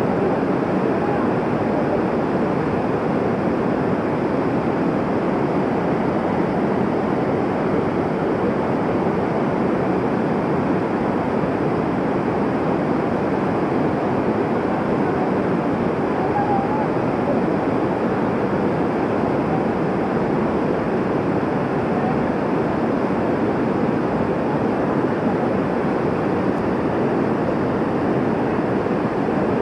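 Rain-swollen mountain stream and waterfall in flood, rushing steadily over rocks across the road.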